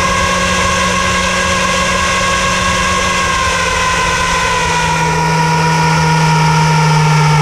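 A boat's motor running steadily. Its pitch falls slowly through the second half while it grows slightly louder.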